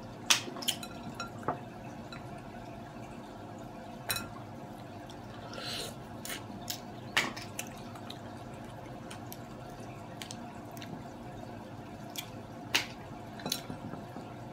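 Scattered sharp clicks and taps of mussel shells being picked apart and handled with long fingernails over a glass bowl, over a faint steady hum.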